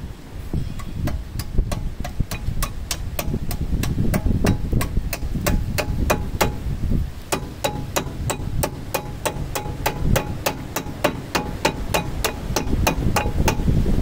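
Hammer tapping repeatedly on the front disc brake caliper of a 1994 Ford Ranger, about three or four quick blows a second, each with a short metallic ring.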